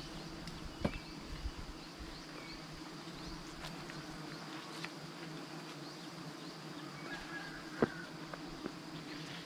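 Steady buzzing of a giant honeybee colony (ong khoái, Apis dorsata) massed on a tree branch, stirred up while its comb is cut away. A few sharp clicks or knocks, the loudest about eight seconds in.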